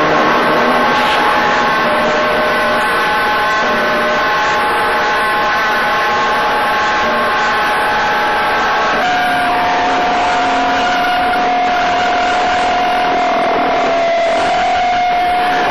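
A loud, steady droning hum: several held tones over a hiss, which about nine seconds in give way to a single held note.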